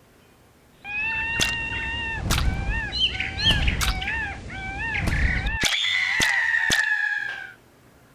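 Bird calls: a run of short warbling notes with sharp clicks, ending in one long, slightly falling note. The calls start and stop abruptly.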